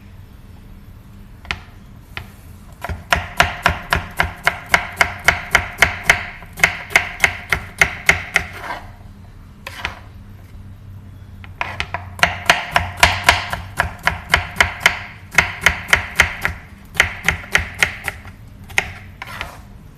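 Chef's knife chopping green bell pepper on a wooden cutting board: quick, even strokes about four a second, in two long runs with a short pause between.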